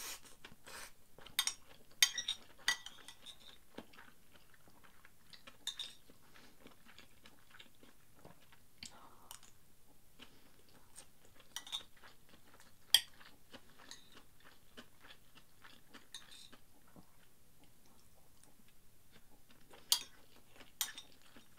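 Metal spoon clinking and scraping against a porcelain plate as fried rice is scooped up, with chewing between scoops. A few sharp clinks stand out from the softer clicks.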